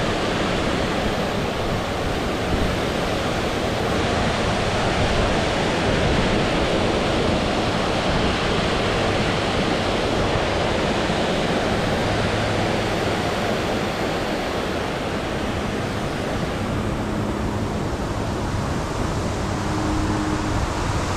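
Steady rush of water spilling over a concrete dam spillway into rocky rapids.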